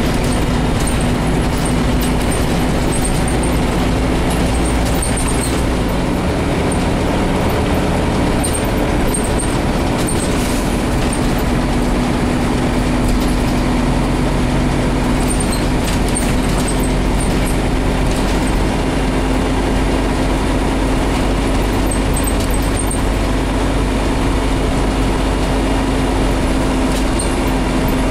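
A Scania CN270UB city bus heard from inside the passenger cabin while under way. Its engine runs with a steady hum and a held tone under a haze of drivetrain and road noise. The low rumble shifts a few times as the engine load changes.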